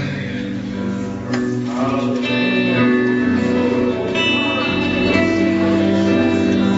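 Live gospel worship music: a band with guitar plays sustained chords, with singing voices held in the background.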